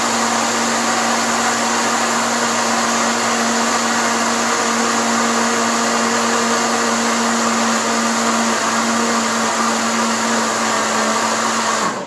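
Countertop blender motor running at a steady high speed, with a constant hum, whirling a liquid soap batter of oil, lye solution and powdered milk, then switched off at the very end. The soap batter is being blended until it thickens.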